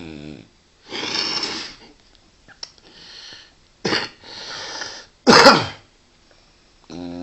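A sleeping dog's steady, pitched snore breaks off into a series of noisy snorts and huffs, the loudest a sharp, sneeze-like snort about five seconds in; after a short silence the steady snore starts again near the end.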